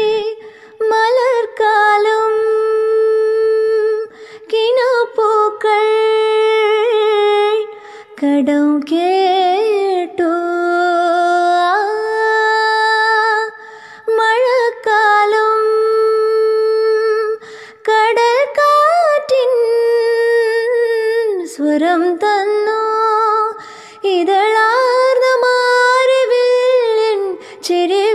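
A woman singing a slow melodic song, with long held notes that slide between pitches, in phrases broken by short pauses.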